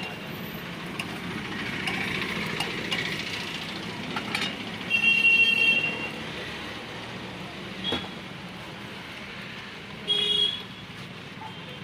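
Road traffic running past, with a vehicle horn honking twice: a longer honk about five seconds in and a shorter one about ten seconds in.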